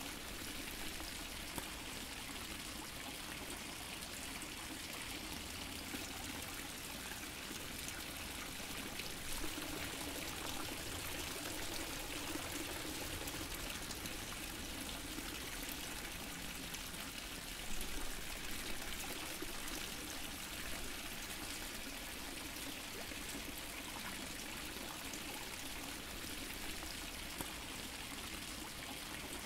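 Water fountain splashing and trickling steadily into a pool, a continuous even rush of falling water with a slightly louder splash now and then.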